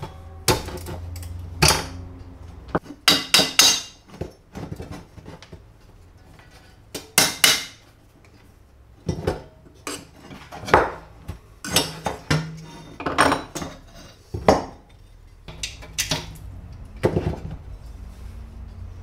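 Metal tools and parts clinking and knocking together in an irregular series of sharp strikes, some coming in quick clusters.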